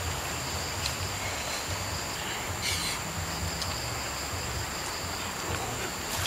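Steady insect chorus of two continuous high-pitched tones, over a low rumble, with a brief scratchy noise about halfway through.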